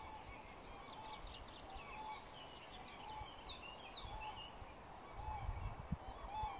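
Wild birds chirping and singing, one repeating a short arched note about once a second, with faint low rumbles and a couple of soft thumps in the second half.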